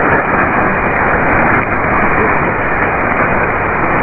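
Shortwave AM radio static on 4.760 MHz: a steady, muffled hiss of band noise from the receiver, with no clear programme audible from the weak station.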